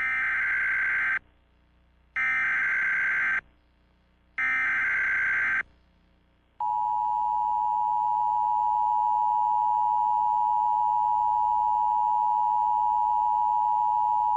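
Emergency Alert System header: three bursts of warbling SAME data tones, each about a second long with about a second between them. From about six and a half seconds in comes the steady two-tone EAS attention signal. This header opens an Emergency Action Termination message.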